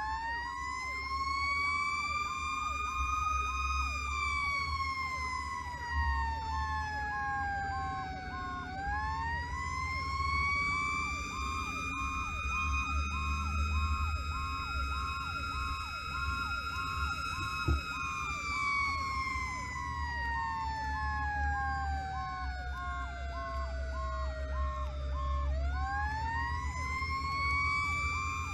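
Fire-rescue truck's sirens sounding while it responds to a call. A slow wail rises and falls three times, over a faster, repeating yelp-like tone, with the truck's engine droning underneath. There is one sharp knock a little past halfway.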